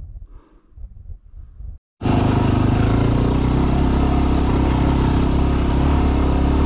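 Yamaha WR250R dual-sport motorcycle's single-cylinder four-stroke engine running steadily while riding, with wind noise on the microphone. It starts suddenly about two seconds in, after a faint low rumble.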